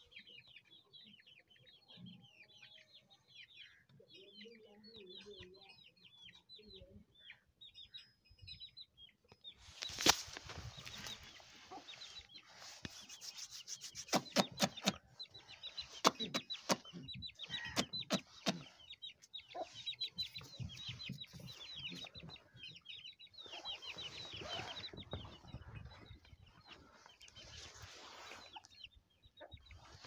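Farmyard fowl calling: a steady stream of short, high chirps and peeps with clucking among them. From about ten seconds in, loud knocks and rustling handling noise come over the calls.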